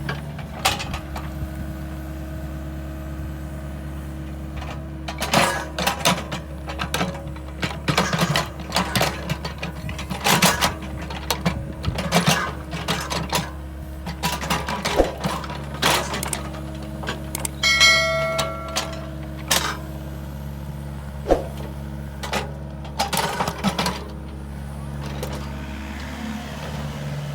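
Excavator engine running steadily while the machine works soil, with repeated clanks, knocks and rattles from the bucket and arm. A brief high squeal comes once, past the middle.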